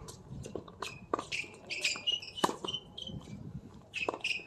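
Tennis rally on a hard court: a few sharp hits of rackets on the ball, about a second and a half apart, with the loudest about halfway, and short squeaks of players' shoes on the court surface in between.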